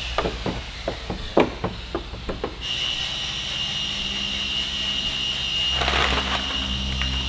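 Hand trigger spray bottles being worked over a car hood: a quick run of irregular trigger clicks and taps, then a short hiss of spray about six seconds in, over a steady high-pitched hum.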